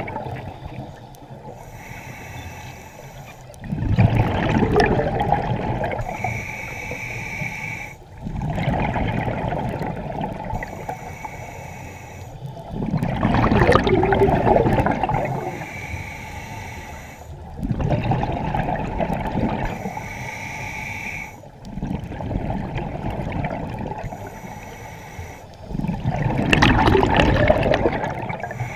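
Scuba diver breathing through a regulator underwater: a hissing inhale, then a loud rush of exhaled bubbles, repeating about every four to five seconds, six breaths in all.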